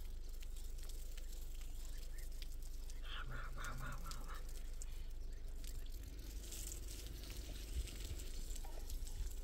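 Water trickling and dripping from the end of a black irrigation hose onto dry soil, over a low steady rumble. A short pulsing high-pitched sound comes about three seconds in.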